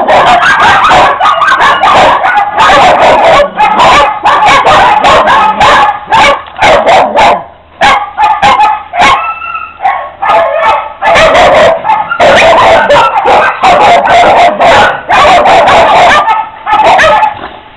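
Several kennelled dogs barking and yipping at once, loud and almost without pause, easing briefly a little before halfway.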